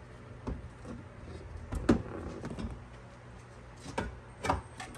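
Scattered knocks and clunks of an ATV radiator being lifted and worked out of its mounts in the frame, the loudest knock about two seconds in and a few more near the end.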